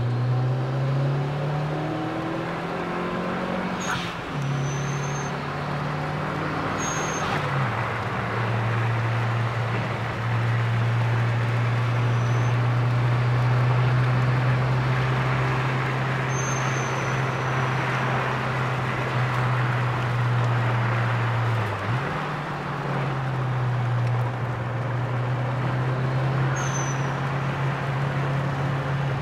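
Mitsubishi Lancer Evolution IV's turbocharged four-cylinder engine pulling hard on track, heard from inside the cabin. Its pitch climbs and drops back at gear changes about 4, 7 and 22 seconds in, over a steady hiss of road noise, with a few short high chirps.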